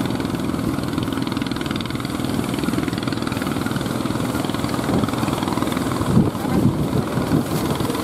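Engine of a wooden fishing boat running steadily as it motors through the surf.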